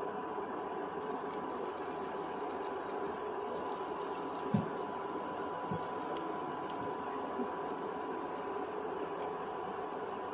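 Steady hum and hiss with a thin steady whine through it, like a running kitchen appliance or fan. Two soft knocks come about halfway through.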